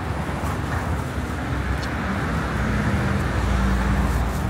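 Road traffic on a city street: a steady low rumble with a vehicle's engine hum that grows louder about three seconds in.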